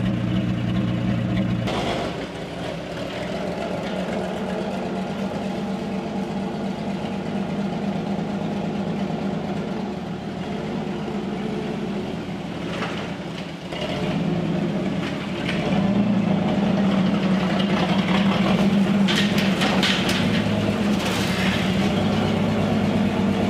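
Old Chevrolet C10 pickup's carbureted engine running just after a cold start on choke. It grows louder from about fourteen seconds in as the truck drives up, with a few light knocks near the end.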